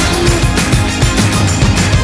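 Background music with a steady, driving beat.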